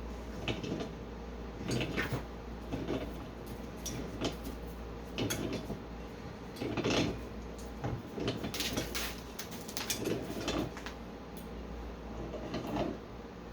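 Irregular clatter of metal cart parts and tools being handled and fitted together while a garden cart is assembled: about a dozen knocks and short scrapes, over a steady low hum.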